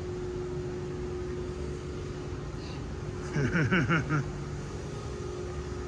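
Steady background hum with a constant tone, and a short burst of a voice about three and a half seconds in.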